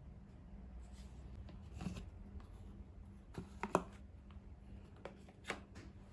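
Scattered handling noises over a faint steady hum: a few light clicks and rustles, the loudest a quick pair of clicks a little before the middle.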